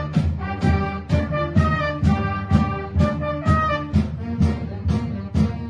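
Brass band music: horns playing a tune over low bass notes, with drums keeping a steady quick beat of about three strokes a second.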